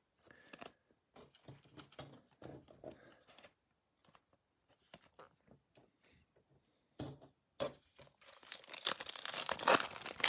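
The foil wrapper of a 2021 Topps Holiday baseball card pack being torn open and crinkled, starting about two seconds before the end and loudest there. Before that come scattered soft rustles and taps of cards being handled.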